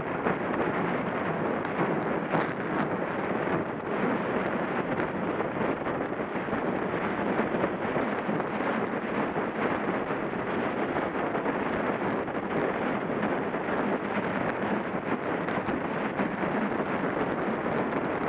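Steady rush of wind buffeting the microphone of a camera on a track bike riding at over 25 mph, mixed with tyres rolling on the wooden velodrome boards.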